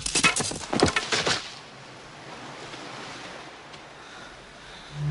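A quick run of sharp knocks and cracks in the first second and a half, then faint, steady surf washing on the shore.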